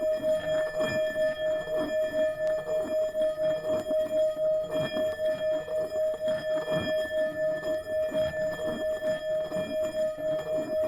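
Tibetan singing bowl played continuously around the rim, its single tone held steady with high overtones and a fast pulsing wobble, over a low rubbing rumble.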